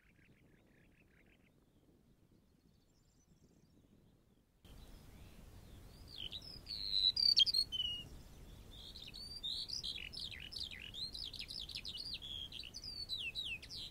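Faint high chirping at first that stops, then after a quiet stretch the background noise steps up suddenly and a songbird sings: a loud phrase of varied whistled notes, followed by a steady run of quick, varied phrases.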